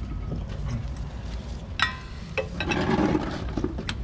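Hand work on metal parts: a sharp metallic clink about two seconds in and a couple of lighter knocks, with a stretch of rustling handling noise in between, over a low background rumble.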